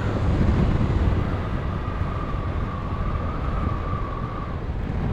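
BMW R1200RT boxer-twin motorcycle cruising along: a steady rumble of engine and wind noise, with a faint thin whine running through it.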